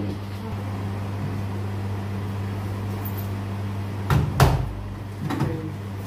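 The glass door of an LG FHT1207ZNL 7 kg front-loading washing machine is pushed shut on a load of clothes: a single thud with a latch click about four seconds in. A steady low hum runs underneath.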